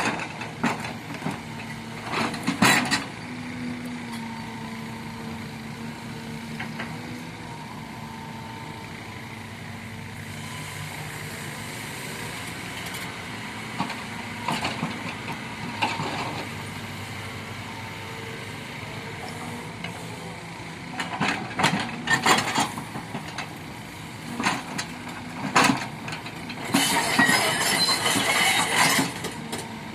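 Kobelco excavator's diesel engine running steadily under work, with several short, loud noisy spells about two seconds in and again several times near the end as the machine works.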